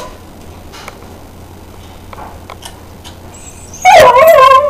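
A dog giving a loud, high-pitched yelping bark about four seconds in, after a quiet stretch with only a few faint clicks.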